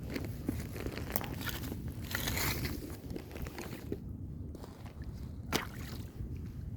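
Footsteps crunching and squishing over wet marsh ground, uneven and irregular, with one sharper crack about five and a half seconds in and a steady low rumble underneath.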